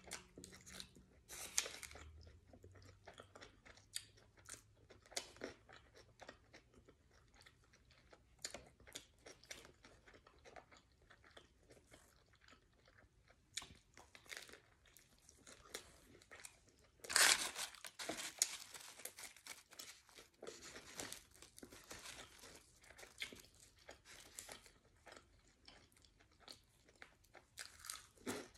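Close-up chewing and biting of a sub sandwich: soft, scattered crunchy mouth sounds, with one louder crunchy bite about seventeen seconds in.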